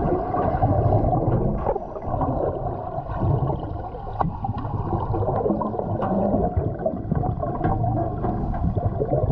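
Water churning and sloshing around a boat, with a steady low rumble.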